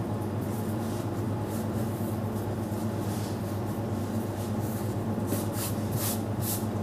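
Hands rubbing and patting floured bread dough as it is reshaped, soft brushing strokes, a few stronger ones near the end, over a steady low machine hum.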